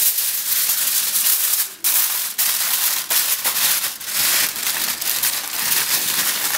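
Aluminium foil crinkling and crumpling as hands spread it over a tray and press it down around the edges, with a brief pause a little under two seconds in.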